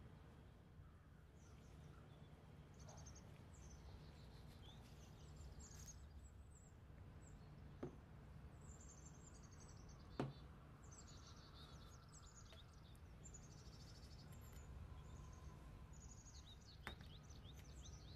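Faint birdsong: short high chirps and little trills repeating over a low steady hum. Three short clicks break in, the sharpest about ten seconds in.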